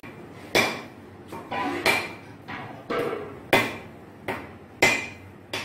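Repeated sharp knocks on the singed hoof of a cow trotter, about nine blows at a steady pace with a short ring after each, striking to loosen and knock off the hard hoof casing.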